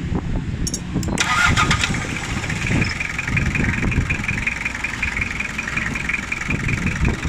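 Toyota 2C four-cylinder diesel engine running, with its clatter turning sharper and louder about a second in, then a fast, even diesel knock while the injection pump timing is being adjusted.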